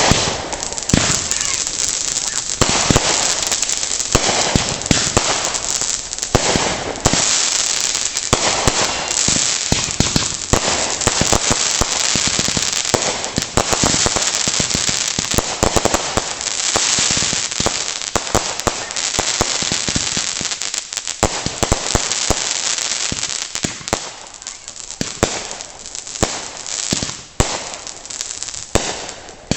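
Fireworks going off in a long, dense barrage of bangs and crackling, packed tight for most of the time and thinning to scattered pops in the last few seconds.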